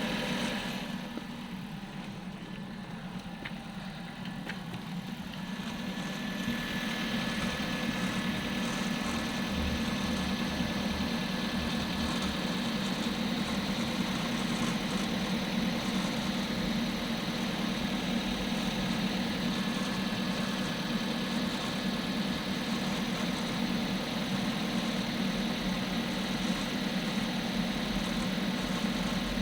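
Hyundai Creta 1.6 idling with its manual gearbox making an extraneous grinding noise at idle. The sound is a little quieter for the first few seconds, then grows louder about six seconds in, with a thin steady whine joining it.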